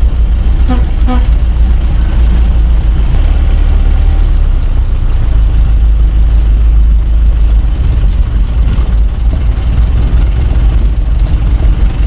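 Ford Model T's four-cylinder engine running as the car drives along, heard as a steady, heavy low rumble. About a second in come two short toots.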